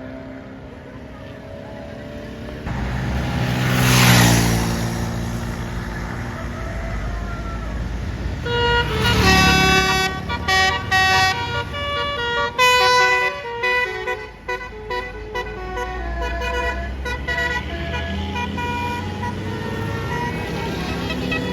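A bus passes close by about four seconds in, its sound dropping in pitch. From about nine seconds on, a bus's telolet horn plays a quick tune of stepped notes over the low rumble of bus engines.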